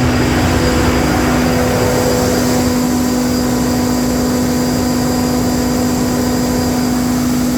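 Mitsubishi S12R V12 diesel engine of a 1650 kVA Kohler SDMO generator set running at a steady speed, with a strong constant hum over the engine noise.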